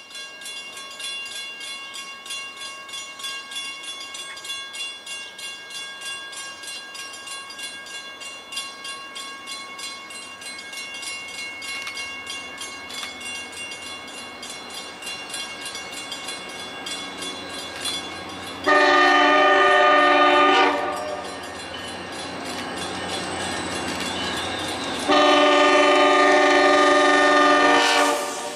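CTrail diesel locomotive approaching with its passenger train and sounding its air horn in two long blasts, the second longer, about 19 and 25 seconds in. Before the horn there is a fainter steady ringing with rapid ticking.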